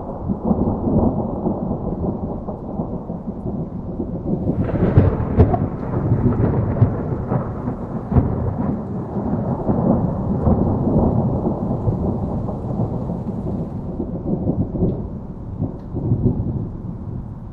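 Distant thunder rumbling long and low, breaking into sharper crackling peals about five seconds in, then slowly dying away near the end.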